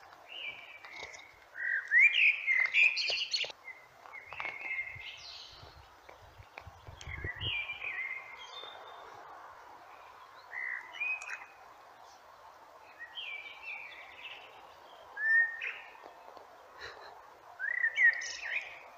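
Eurasian blackbird singing: about seven short, fluty warbled phrases, several ending in a higher, squeaky twitter, with pauses of a second or two between them.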